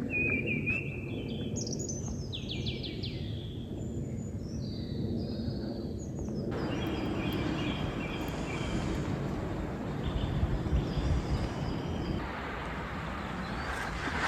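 Woodland birds singing, a mix of short chirps and trills, over a steady low background rumble.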